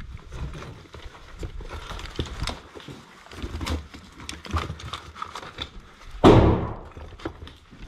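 Footsteps and gear knocking on rubble and a concrete floor, a scatter of short knocks and scuffs. About six seconds in comes one loud thump that dies away over about half a second.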